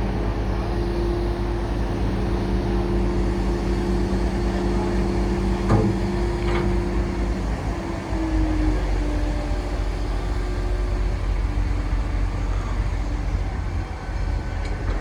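Heavy vehicle engines running steadily amid street traffic, a low rumble with a steady hum whose pitch shifts about eight seconds in. A single short knock near the middle.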